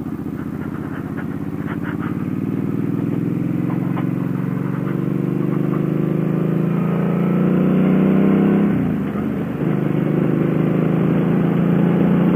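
Suzuki Boulevard M50 motorcycle's V-twin engine pulling under acceleration, its pitch climbing slowly. About nine seconds in it drops sharply in a gear change, then climbs again.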